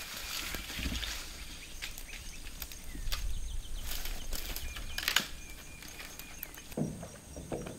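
A dead branch dragged through brush and over grass, rustling and crackling with irregular twig snaps, a sharper crack about five seconds in.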